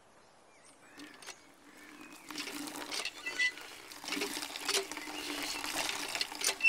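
Faint rural outdoor ambience: a few soft bird chirps and scattered light clicks and knocks over a low background hum.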